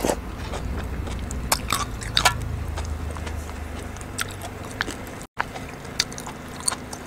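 Close-miked chewing of a soft mouthful of larva-like bits, with scattered wet mouth clicks and smacks over a low hum. The sound cuts out briefly about five seconds in.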